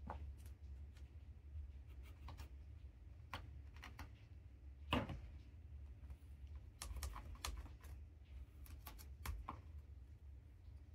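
Light, irregular clicks and taps of a cat batting a small candy stick across foam floor mats, with its paws and claws on the mat. The loudest tap comes about five seconds in, over a steady low room hum.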